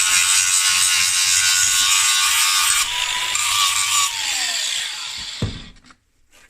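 Angle grinder with a flat disc grinding metal: a steady, loud, high-pitched grinding that starts abruptly. About five seconds in the grinder is switched off and winds down with a falling pitch.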